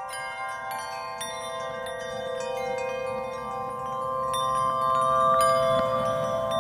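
Soft background music of held chime-like tones with twinkling high bell notes, slowly growing louder.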